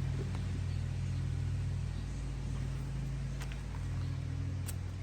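A vehicle engine idling, a steady low hum, with a couple of faint clicks near the end.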